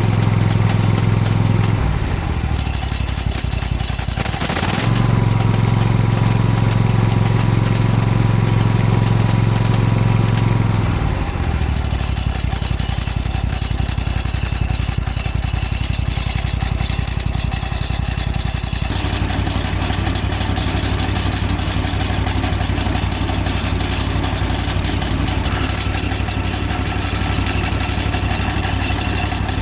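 Exmark zero-turn mower running, its engine holding a steady low hum that changes in character several times, with a brief noisy burst about five seconds in and a faint thin whine for a few seconds after it. The noise is put down to a new aftermarket blade clutch that has grown louder over about 15 hours of use, for a cause the owner cannot find.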